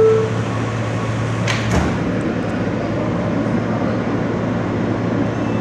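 R160 subway car's sliding doors closing with a sharp knock about one and a half seconds in, just after the last note of the door-closing chime. A steady low hum stops at the knock, and the car's even rumble carries on.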